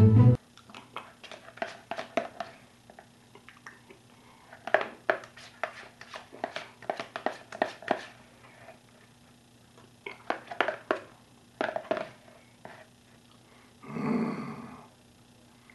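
A spoon scraping and tapping inside a plastic tub of sour cream, with wet mouth sounds of eating, in irregular clusters of short clicks. About 14 s in, a breathy hum through a full mouth lasting about a second.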